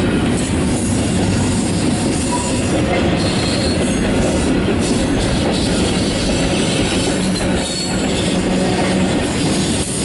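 Double-stack intermodal container well cars of a freight train rolling past, a steady rumble and clatter of steel wheels on rail.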